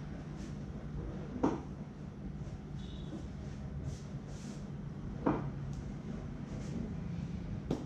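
Hands at work in a head massage: three sharp smacks, about a second and a half in, at five seconds and near the end, with soft rubbing swishes between them, over a steady low background hum.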